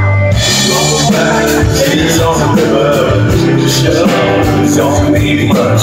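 Live rock band playing an instrumental passage: electric and acoustic guitars over bass and a steady drum beat.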